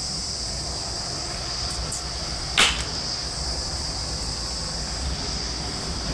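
Crickets chirring steadily over a low rumble, with one sharp snap about two and a half seconds in.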